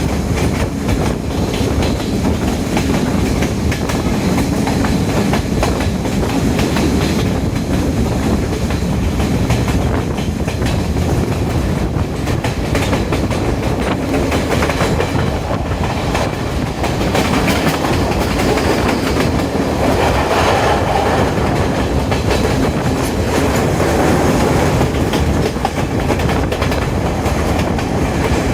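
Diesel intercity express train running on the rails, a steady rumble of wheels and track that grows somewhat brighter about twenty seconds in.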